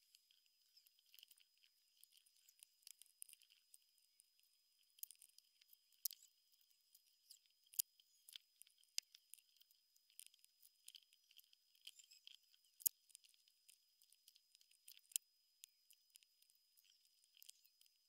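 LEGO pieces being handled and snapped together: irregular light plastic clicks and ticks, with several sharper clicks standing out, over a faint steady high whine.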